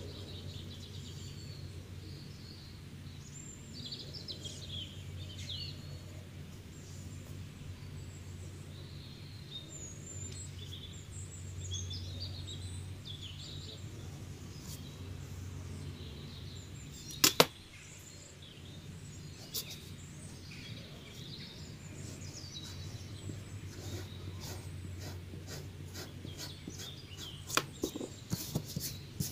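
Steady low hum with faint high chirps over it. There is a pair of sharp clicks about seventeen seconds in and a few more clicks near the end.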